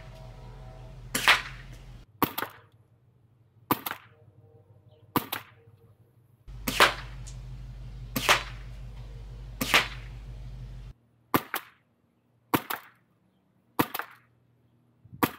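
Suppressed airsoft rifle shots heard from downrange, about eleven in all at a steady pace of one every second and a half or so. Each shot's report is followed a split second later by the crack of the BB hitting the target. The later shots are fired through a mock suppressor packed with about 3 inches of Cloak foam inserts.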